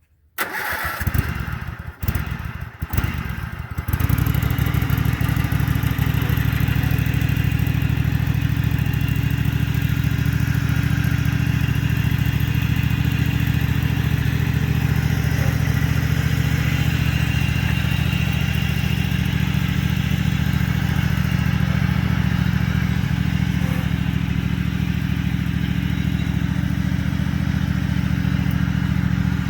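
Small engine of a riding lawnmower converted into a mini tractor, starting up in a few uneven bursts over the first few seconds, then running steadily. Its pitch steps up slightly about halfway through.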